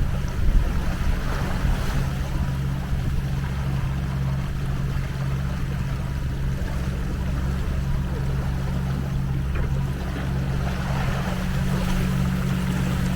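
A yacht's engine droning steadily as the boat motors under way, with water rushing past the hull.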